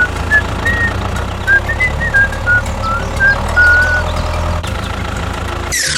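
Vehicle engine running steadily with a low hum, while a series of short, high chirping notes plays over it for the first few seconds. A quick falling swoosh comes just before the end.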